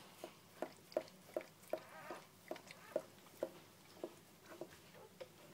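Faint, regular smacking mouth sounds from Border collie puppies chewing or mouthing, about two or three soft smacks a second.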